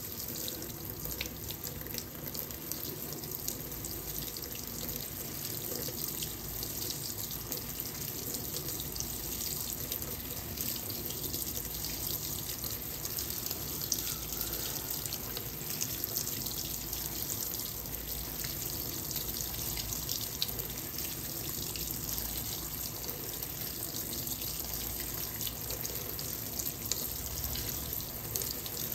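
Fisher & Paykel WL8060P1 top-loading washing machine filling, with a steady rush of water pouring into the tub.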